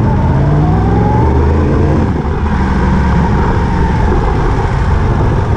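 Vehicle engine speeding up, its pitch rising for about two seconds, then running steadily.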